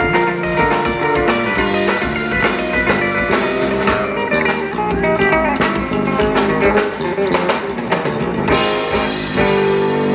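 Live band playing an instrumental passage, with plucked guitar lines over percussion hits.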